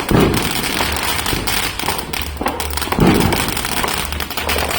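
Firework crackling steadily with a dense spray of small pops, and two louder thuds, one at the start and one about three seconds in.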